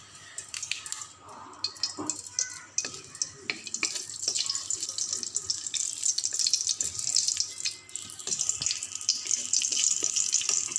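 Bay leaves sizzling and crackling in hot oil in an aluminium wok. The fine crackle grows denser and steadier after about four seconds.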